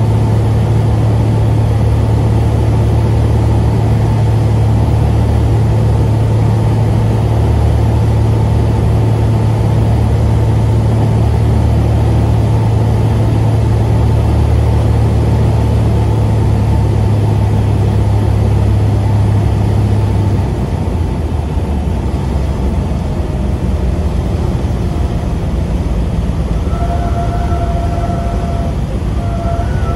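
Cabin sound of a Cessna 182 on final approach: the piston engine and propeller drone steadily under wind rush. About two-thirds of the way through, power comes back and the drone drops lower and quieter as the plane settles over the runway. Near the end, a steady higher tone sounds in two stretches.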